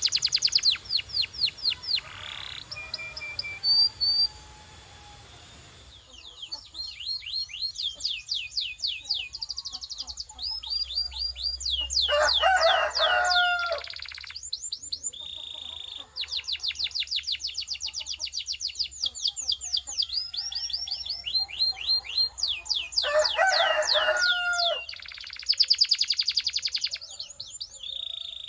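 Domestic canary singing: fast rolls of rapidly repeated falling notes in runs of a few seconds, broken by short pauses. There is a lower warbling passage about twelve seconds in and again near twenty-three seconds.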